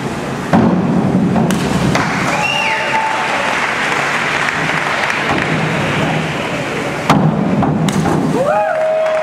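Reverberant din of an indoor diving pool, with a thud about half a second in and a sharp impact about seven seconds in as the diver hits the water from the 1 m springboard. Voices call out near the end.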